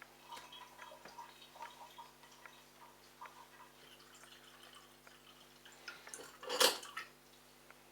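Water dripping and trickling from the opened drain-pump filter housing of a Bosch washing machine, in small irregular drops, with one louder brief splash-like noise about six and a half seconds in.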